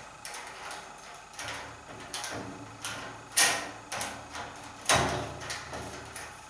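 Metal reflector rods and bracket of a BlueLine AT45 DVB-T antenna clicking and knocking against the boom mount as the reflector is fitted on: a series of light knocks, the two loudest about three and a half and five seconds in.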